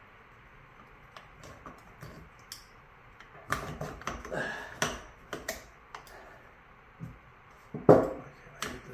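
Metal engine parts clicking and clinking as they are handled during assembly of an inline-six outboard powerhead: a few light ticks at first, busier clinking from about halfway, and one louder knock near the end.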